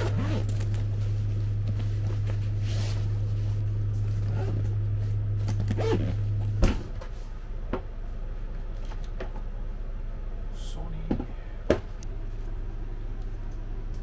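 Handling noise as camera gear is unpacked: a backpack, then a zippered case, with scattered clicks and knocks of the gear being picked up. A steady low hum runs through the first half and cuts off suddenly with a knock about six and a half seconds in.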